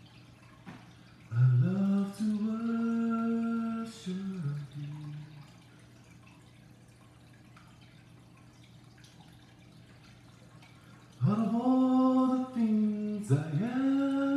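A man singing unaccompanied, wordless held notes with slides up into them, in two phrases: one about a second in, lasting a few seconds, and another starting near the end.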